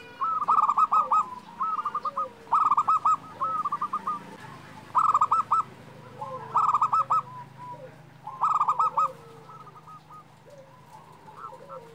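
Zebra dove (perkutut) cooing: short bursts of rapid rolling notes, repeated every second or so. The phrases grow fainter after about nine seconds.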